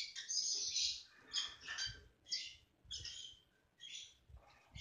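Peach-faced lovebirds chirping in short, scratchy bursts, about one a second, with brief pauses between.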